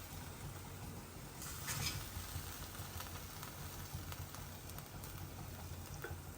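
A few faint scrapes and taps of a spoon against the pan as cooked chicken fry is lifted out into a bowl, the clearest scrape about two seconds in, over a low steady hum.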